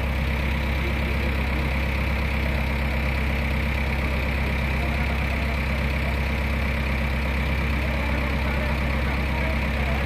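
JCB 3DX backhoe loader's diesel engine idling steadily.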